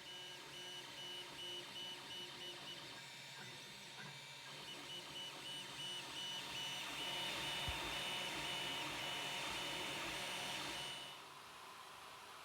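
Creality Ender 3 Pro 3D printer running, its stepper motors whining in short on-off tones over the steady hum of its fans, with the loudness pulsing as the motors move. Partway through, a louder hissing stretch sets in and then cuts off suddenly, leaving a quieter steady hum.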